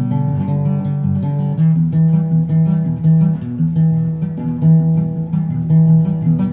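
Instrumental background music on a plucked guitar, a slow run of held notes over a low bass line.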